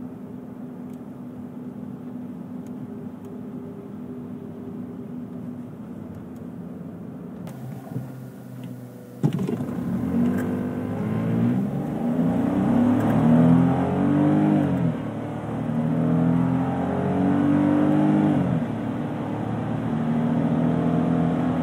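Smart ForTwo's 999 cc three-cylinder petrol engine heard from inside the cabin. For the first few seconds it hums steadily under light cruising with road noise. About nine seconds in it accelerates through the gears, the revs climbing and dropping back at three automatic upshifts, then settling to a steady drone at higher speed.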